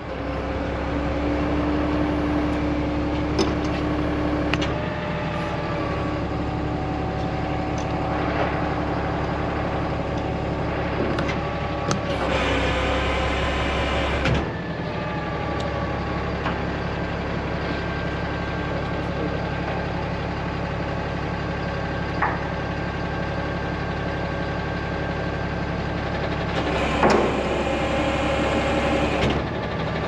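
Truck engine running steadily to drive a truck-mounted crane, with hydraulic whines that rise and fall in pitch as the crane works. A louder rushing noise lasts about two seconds near the middle, and there are a few light knocks.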